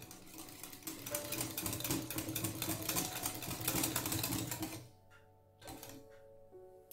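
Wire balloon whisk beating a runny butter, sugar and egg mixture in a glass bowl: fast clicking and scraping of the wires against the glass, stopping about five seconds in.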